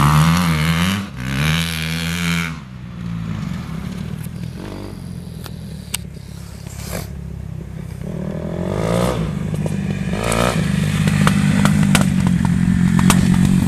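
Kawasaki KX dirt bike engine revving up and down as it passes, dropping off as the bike rides away across the field. It grows louder again from about eight seconds in as the bike comes back toward the listener.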